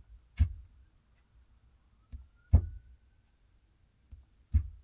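Three sharp clicks about two seconds apart, each preceded by a softer tick, with a faint thin high whine between the second and third.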